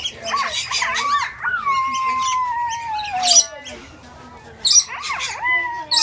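Rainbow lorikeets squawking: short, shrill screeches among softer chattering calls, the loudest about three seconds in and again near the end.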